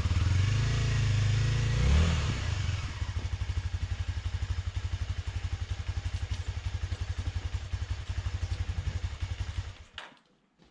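Honda Dominator dual-sport motorcycle's single-cylinder engine idling, with a brief rev in the first two seconds and then a steady, pulsing idle. It cuts off suddenly about ten seconds in as the engine stops.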